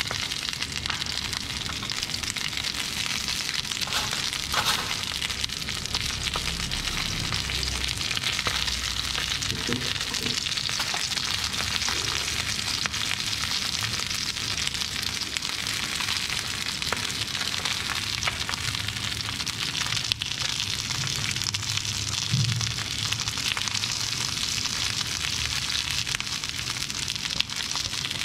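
Fish pieces shallow-frying in hot oil in a pan, a steady sizzle.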